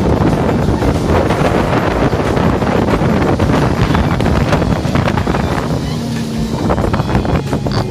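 Wind buffeting the microphone over rushing, churning water and spray as a fast tour boat powers through the tidal rapids. The rush eases about six seconds in, leaving a steady low engine hum.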